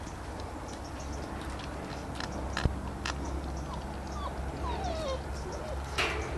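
Boxer puppy giving a few short, falling whines, mixed with several sharp clicks.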